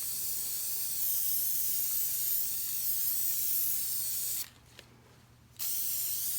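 Aerosol can of HDX multi-purpose spray adhesive spraying: a steady hiss for about four seconds, a break of about a second, then spraying again.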